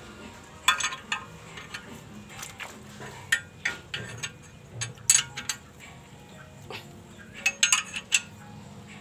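Metal hand tool clinking and tapping against the valve rocker adjusting screw of a Dongfeng R175 diesel engine, in several short clusters of sharp clicks.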